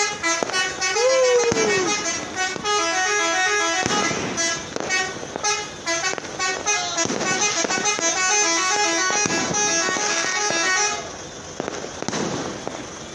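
Several trucks' telolet horns sounding together, a jumble of overlapping multi-note melodic horn tones stepping up and down in pitch, with one falling glide near the start. The horns stop about eleven seconds in, leaving a noisy hiss.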